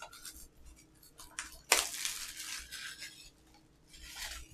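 Plastic Blu-ray case and its slipcover being handled, with light rustling and small knocks. A sharp plastic click a little under two seconds in, like the case snapping open.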